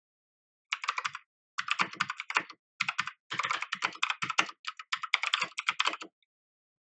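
Typing on an MK Disco TKL mechanical keyboard with clicky KBT (Kailh) blue switches: quick keystrokes in four short runs, stopping about a second before the end.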